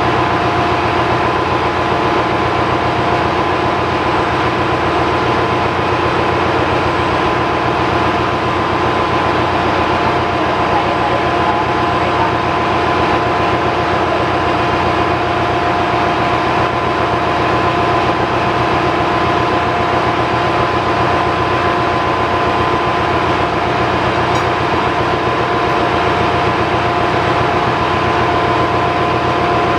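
Steady engine-room machinery din from other running engines nearby, a constant heavy hum with two steady whining tones over it. The Yanmar diesel under overhaul is itself stopped.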